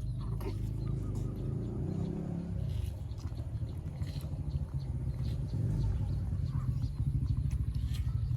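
Steady low rumble with a fine rapid pulse, with a few faint ticks above it.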